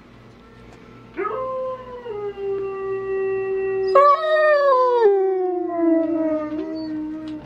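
Husky-type dog howling: one long howl begins about a second in and holds steady. About four seconds in, a second, higher howl joins over it, and both slide slowly downward in pitch before trailing off near the end.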